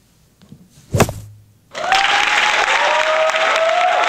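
A single sharp knock about a second in, then a crowd breaks into loud applause just before two seconds.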